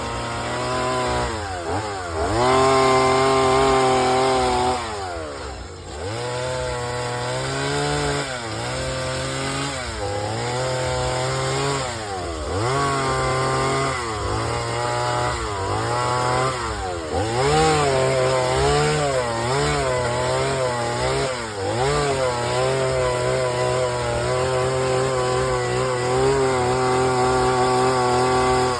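Chainsaw cutting into wood for carving, its engine revving up and sagging repeatedly as the chain is pushed into the cut and eased off. There is one deep drop in engine speed about five seconds in, and the speed holds steadier near the end.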